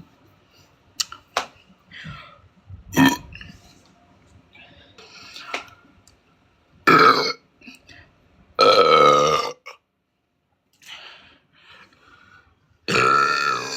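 A woman burping loudly several times: short belches about three and seven seconds in, a long drawn-out one around nine seconds, and another starting near the end.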